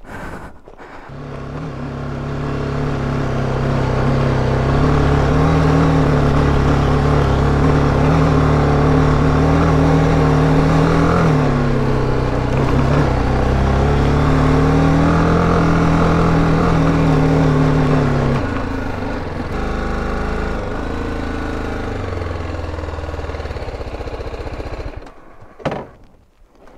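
BMW G310GS's single-cylinder engine pulling steadily under load up a sandy dirt track. Its note dips and recovers around the middle, then eases to a lighter, quieter run about two-thirds through, and stops shortly before the end.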